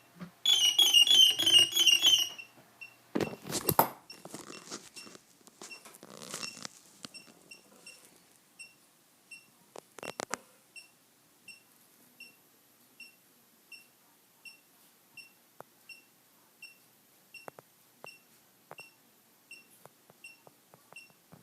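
A hexacopter's electronics beeping: a quick run of pitched startup tones, then short high beeps repeating about every 0.6 s while the motor fails to start, with a few knocks from handling.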